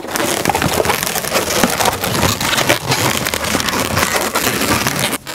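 Inflated black latex modelling balloons (260s and 160s) being twisted and wrapped together by hand, rubbing against each other in a dense crackly run of rubbing and squeaking that stops abruptly near the end.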